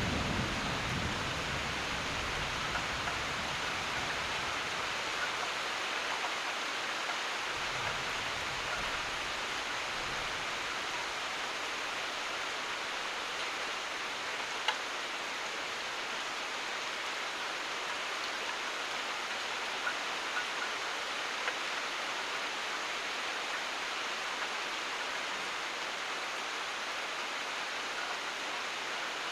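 Steady heavy rain falling, an even hiss, with the tail of a thunder rumble dying away in the first second. A few sharp ticks of single drops stand out, the loudest about halfway through.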